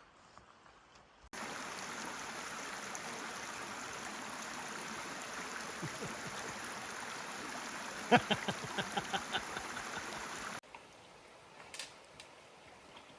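Creek water running steadily. It cuts in a little over a second in and stops abruptly near the end, with a quick run of about eight sharp clicks shortly before it stops.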